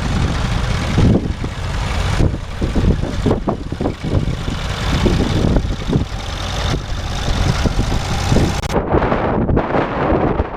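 Tractor engine running, mixed with heavy wind buffeting on the microphone.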